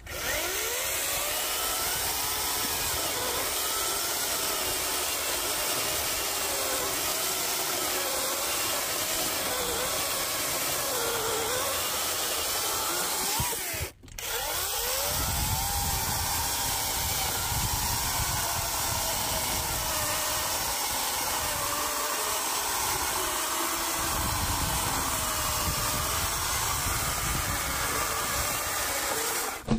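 Parkside 40V cordless chainsaw cutting through a thick oak log, its motor and chain running steadily, with the whine dipping and recovering in pitch as it works through the wood. The sound stops briefly about halfway through, then runs on.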